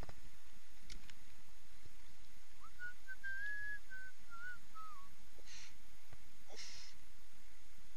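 A person whistling a short tune: a few wavering notes starting about two and a half seconds in, dropping away at the end after about two and a half seconds. Two brief rustling scuffs follow near the end.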